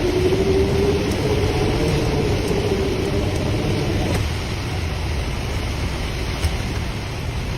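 A motor hum, rising slightly in pitch, that cuts off about four seconds in, over a steady rushing noise and low rumble.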